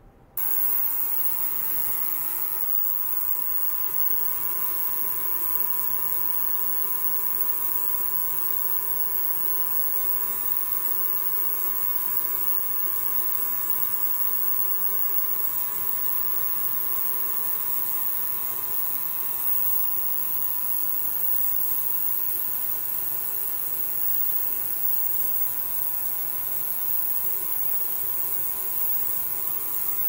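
Benchtop ultrasonic cleaner switching on about half a second in, then running with a steady hum of several tones and a high hiss.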